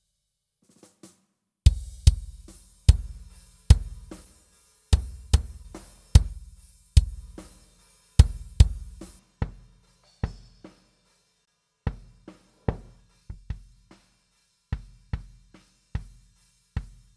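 Sampled rock drum kit from Superior Drummer 3 playing a groove of kick, snare, hi-hat and cymbal hits. From about nine seconds in the cymbal wash drops away and sparser, mostly low drum hits remain.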